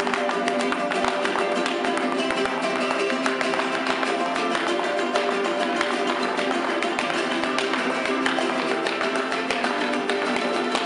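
Son jarocho music: jaranas and other small guitars strummed in a fast, steady rhythm, with the dancers' zapateado heel-and-toe stamping clicking sharply and rapidly on a tile floor throughout.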